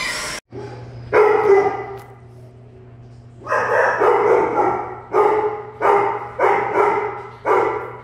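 A dog barking: one bark about a second in, then a quick run of repeated barks from about halfway through, over a steady low hum.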